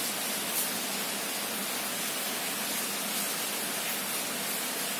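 Steady, even hiss of background noise with no other sound, apart from a brief faint click about half a second in.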